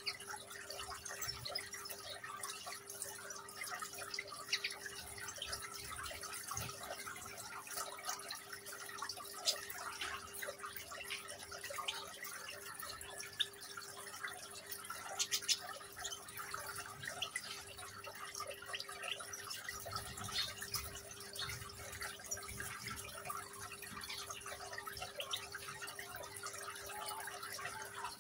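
Water trickling and dripping in a small artificial-rock tabletop fountain, over a steady low hum.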